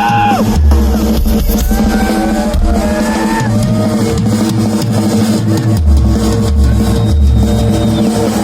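Live rock band playing loudly: a drum kit with heavy bass-drum hits under a sustained chord, with bending pitched lines above it.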